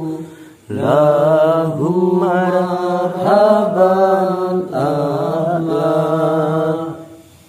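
A man's voice chanting a prayer in long, melodic, held phrases, starting about a second in and stopping shortly before the end.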